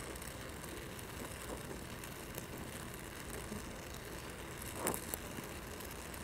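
Oxy-fuel welding torch with a #3 tip burning with a steady, even hiss while it holds the weld puddle on steel plate, with one brief faint sound about five seconds in.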